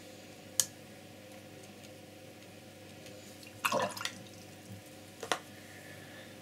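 A few small handling noises from the brush and paint table: a sharp click about half a second in, a short tap with a falling pitch near four seconds, and another click a second later, over low steady room noise.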